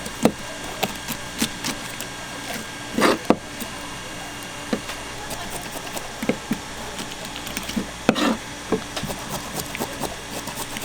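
Knife knocking and scraping on a wooden cutting board while a fish is filleted for sashimi: scattered sharp knocks, with two heavier thuds about three and eight seconds in.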